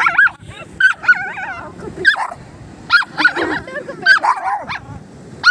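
A miniature pinscher and another small dog barking at each other: a quick series of sharp, high barks, roughly one or two a second.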